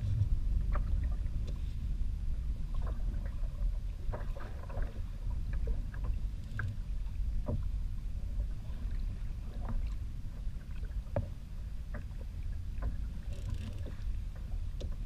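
Small choppy waves lapping against the plastic hull of a Wilderness Systems Tarpon 120 sit-on-top kayak, with irregular light splashes and ticks over a steady low rumble.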